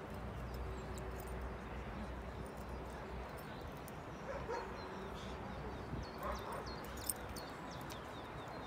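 A Hovawart gives a few short barks and yips while playing with a toy, once about halfway through and again a couple of seconds later.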